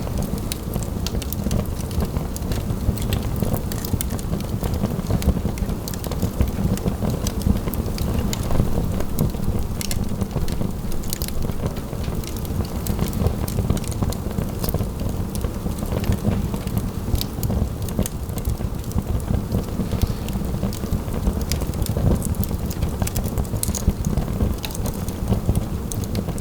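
Fire burning in a fireplace, crackling and popping with many small sharp snaps over a steady low rumble of the flames.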